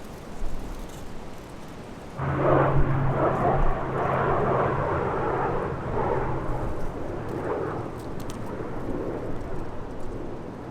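C-130 Hercules turboprop engines and propellers, a loud rushing roar that starts suddenly about two seconds in over a steady low hum, then slowly fades.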